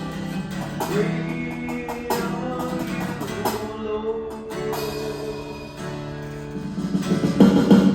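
Live worship music, led by an acoustic guitar strumming chords.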